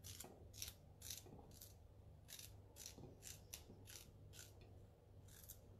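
Faint, crisp snapping and tearing, a dozen or so short crackles at about two a second, as fingers peel the rough green fibrous outer layer off pieces of artichoke stem.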